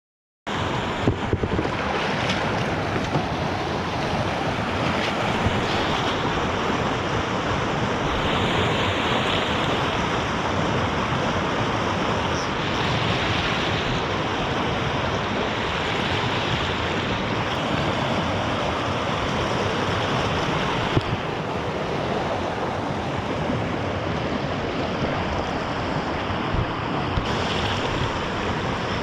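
Steady rushing noise of wind on the microphone and water moving around a kayak on a river.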